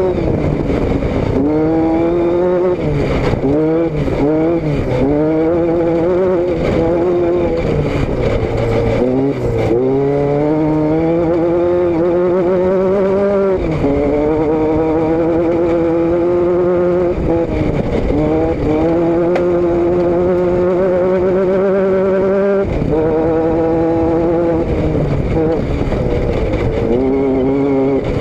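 Car engine and exhaust note under way, the engine note climbing steadily under load and then dropping back at each gear change, over and over. Heard from the rear of the car.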